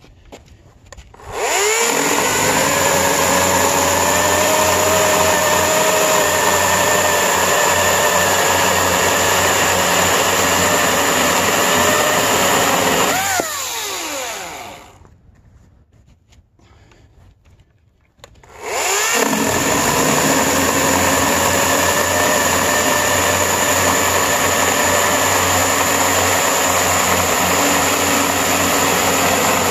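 EGO 14-inch cordless electric chainsaw cutting through a wooden beam twice. Each time the motor whines up to speed and runs steadily through the cut; the first run winds down with a falling whine about halfway through, and the second starts a few seconds later.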